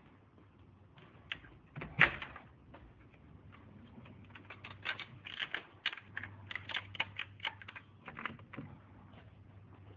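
Wooden coop doors and a door latch being handled: a sharp knock about two seconds in, then a run of quick clicks and taps for several seconds.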